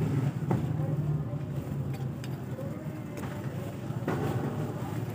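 A steady low hum runs throughout, with a few faint, short metallic clicks as a 1/2-13 UNC tap is turned by hand into the motorcycle crankcase's stripped drain-plug hole to cut new threads.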